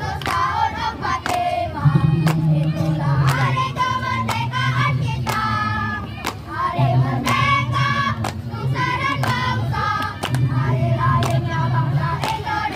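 A group of young voices singing a chant together in unison, the song or yel-yel of a marching drill team, with sharp hits sounding among the singing.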